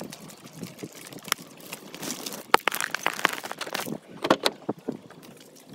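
Footsteps and rustling on wet, gritty ground, then a sharp click and a few knocks as a car door is opened and someone climbs in.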